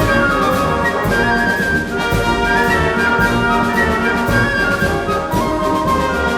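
Orchestral music led by brass, with sustained chords and steady loudness.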